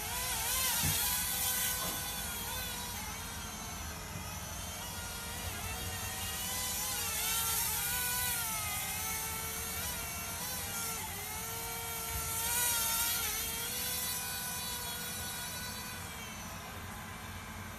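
Small mini-quadcopter's electric motors and propellers whining, the pitch rising and falling as the throttle changes in flight. Wind buffets the microphone, with stronger gusts several times.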